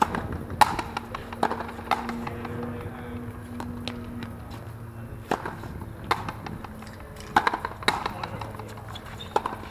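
Sharp cracks of a frontenis ball struck by rackets and hitting the frontón wall during a rally, often two in quick succession, spaced irregularly a second or more apart.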